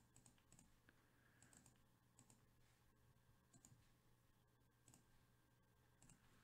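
Faint, irregular clicking of a computer mouse, some clicks in quick pairs, over low room hum.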